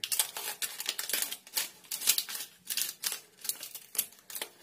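Scissors snipping through a packet of dark compound chocolate: a quick series of crisp snips, about three a second, with the packet crinkling.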